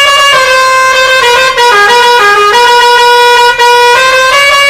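Truck's six-pipe pressure horn playing a tune, loud sustained tones stepping from note to note with a couple of brief breaks.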